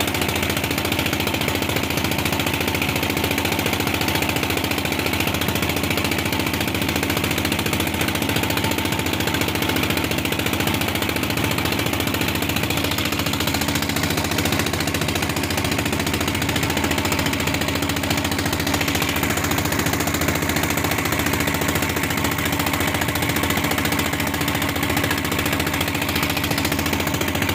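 Fishing boat's engine running steadily, a fast even thudding that does not change.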